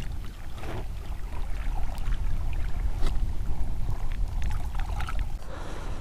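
Wind rumbling over a helmet-mounted microphone, with small waves lapping and splashing at a rocky lake shore.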